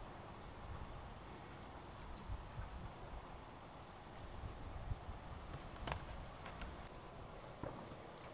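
Faint, steady background hiss and low rumble with a few light clicks about six seconds in and again near seven and a half seconds.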